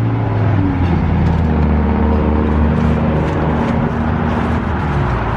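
Road traffic close by: a motor vehicle's engine hums low and steadily, its pitch shifting about a second in, over the noise of passing cars.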